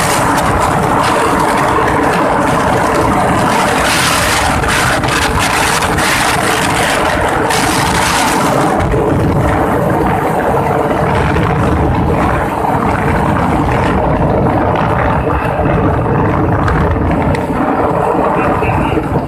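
A motor vehicle's engine running steadily while driving, with a loud rushing of air and road noise that eases about halfway through as the vehicle slows.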